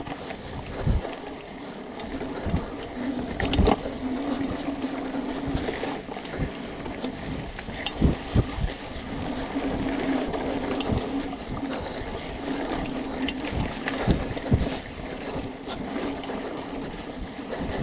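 BMC Twostroke AL 2 hardtail mountain bike ridden along a dirt singletrack: tyre noise on the dirt and wind on the microphone, with many sharp knocks and rattles as the bike hits bumps. A steady hum comes and goes twice.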